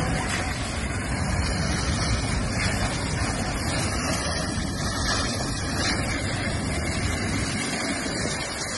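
A Royal Navy minehunter's engines running as it manoeuvres in close to a moored warship: a steady low rumble under a rushing noise, with no distinct impact.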